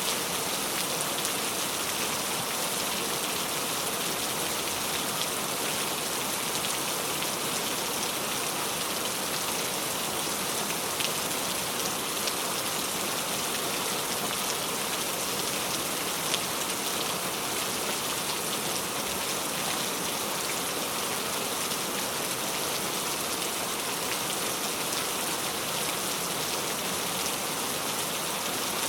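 Steady rain falling, an even hiss with scattered drops pattering on a surface.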